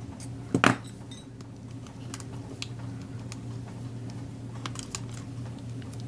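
Light metallic clicks and rattles of thin craft wire and needle-nose pliers as the wire is wound around a plastic glue bottle, with a sharp double click about half a second in. A steady low hum runs underneath.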